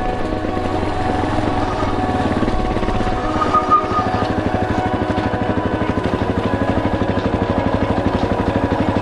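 Yamaha Serow single-cylinder motorcycle engine running. About four seconds in it settles into a slow, even thump, as at low revs.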